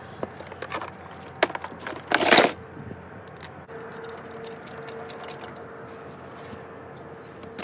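Metal hand tools clinking and clattering as they are taken from a plastic socket-set case and laid on concrete: a string of light clicks and knocks, with one louder rattle about two seconds in.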